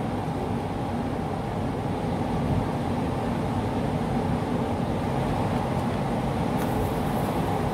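Steady drone of factory machinery, an even hum with a constant low tone.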